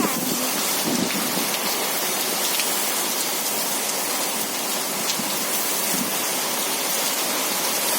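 Steady rain falling and pattering on surfaces, an even hiss with scattered drop ticks.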